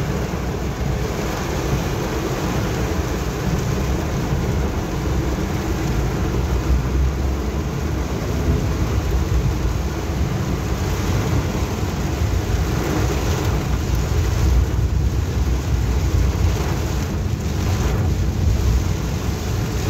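Heavy rain falling on a moving car's roof and windscreen, heard from inside the cabin over the steady low running noise of the car.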